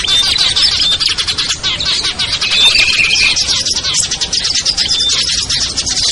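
Loud, dense chorus of many small songbirds chirping rapidly at once, with a few short whistled notes mixed in. It is a bird-lure recording made to call wild small birds down.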